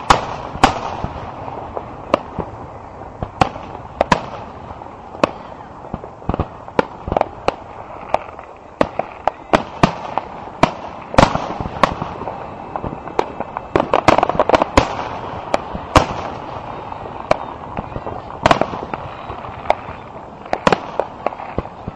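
Fireworks display: aerial shells bursting in an irregular series of sharp bangs, at times several in a second, over a steady background din.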